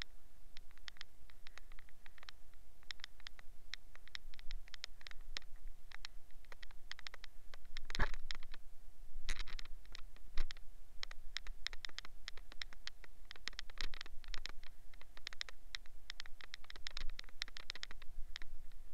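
Sponge scrubbing a soapy steel wheel rim: a fast, irregular run of short wet rubbing strokes, with a louder rub about eight seconds in.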